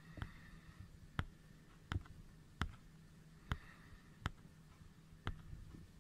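A row of seven sharp, separate clicks, roughly one every three-quarters of a second to a second, over faint room noise.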